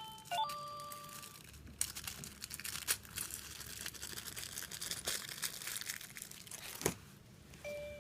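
Wireless motion-sensor chime receiver playing electronic chime notes that stop about a second and a half in, followed by several seconds of crackling and scattered clicks, with a sharp click near the end, before a new chime tone starts just before the end.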